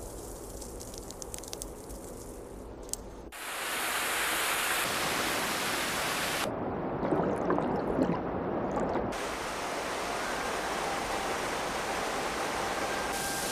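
Water dripping from ice, then running and splashing down an icy rock face in a small cascade. The rush comes in abruptly about three seconds in and grows louder.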